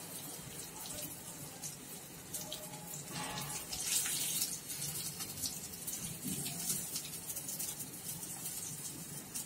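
Hot oil sizzling and crackling in a frying pan around pieces of marinated fish tikka, with light scrapes and taps of a metal spatula lifting the fish out.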